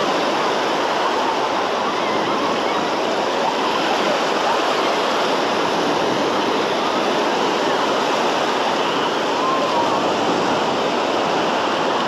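Small waves breaking and washing up on a sandy shore, a steady rush of surf.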